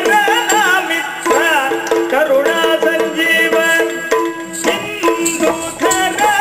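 Yakshagana dance music: a bending, gliding melody over a steady held drone, with drum strokes from the chande and maddale.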